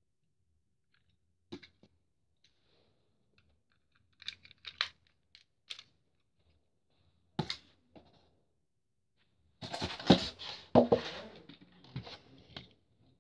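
Hands handling a Zero-X toy model and its packaging: scattered clicks and scrapes, then a louder run of knocks and rubbing from about ten seconds in to near the end.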